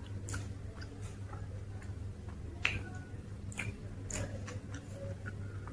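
Close-miked eating sounds: scattered soft clicks and crackles of a person chewing crisp dosa, with one sharper crunch a little before halfway, over a steady low hum.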